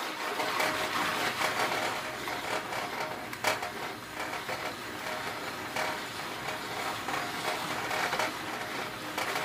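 Jiffy Pop foil popcorn pan being shaken back and forth over a stove burner: a steady scraping rattle as kernels heat in the oil, with an occasional sharp pop as they begin to pop.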